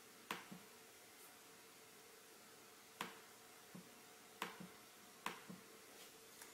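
Soft key presses on a MacBook Pro keyboard, about ten sharp taps at irregular intervals, some in quick pairs, with a faint steady hum underneath.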